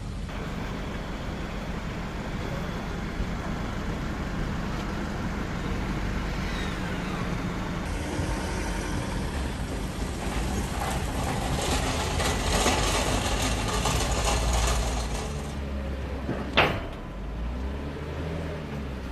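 2022 Lexus LX running, its sound swelling for a few seconds past the middle before settling again. A single sharp thump near the end is the loudest sound.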